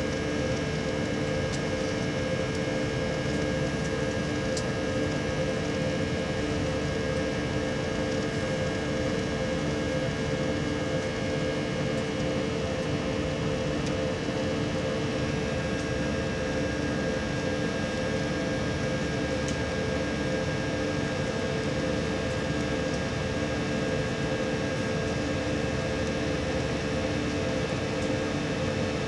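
Steady cabin noise of a jet airliner climbing after takeoff: engine and airflow noise heard inside the passenger cabin, with a steady hum of a few held tones.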